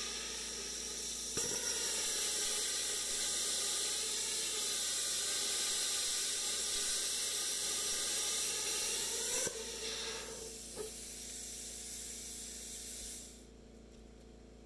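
Plasma cutter cutting through square steel tube: a loud, steady hiss of the arc that starts abruptly with a click about a second in and cuts off sharply about nine seconds in. A softer hiss of air follows for a few seconds and stops near the end.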